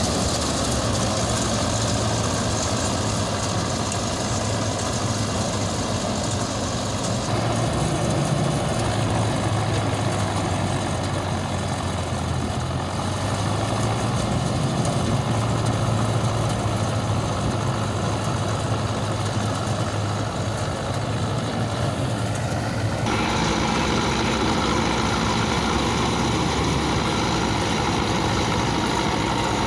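Mahindra Arjun Novo 605 DI-i tractor's diesel engine running steadily with a mounted Balkar B-525 combine harvester, a constant low hum. The tone changes abruptly twice, about a quarter of the way in and again near the end.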